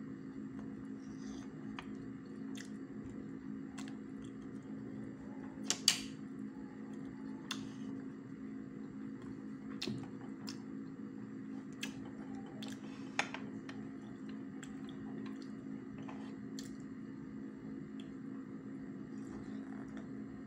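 Metal fork clinking and scraping on a glass dish while biko is eaten, a handful of scattered sharp clinks, the loudest about six seconds in, with chewing between them. A steady low hum runs underneath.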